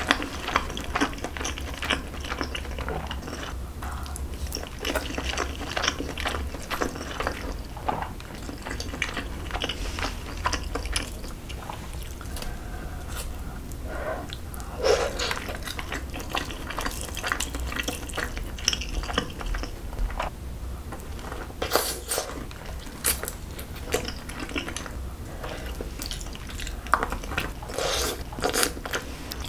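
Close-miked eating of braised kimchi and pork back ribs: wet chewing and smacking, with chopsticks clicking against the metal pan and dishes now and then.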